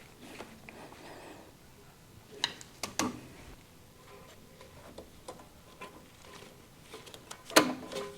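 Sharp metallic clicks and knocks from brake caliper parts and tools being handled while new brake pads are fitted: two or three clicks about two and a half to three seconds in, and a louder knock near the end.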